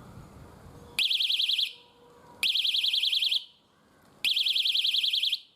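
Electronic bicycle horn sounding three times. Each blast is a high-pitched tone that warbles rapidly, about a dozen times a second, and lasts about a second.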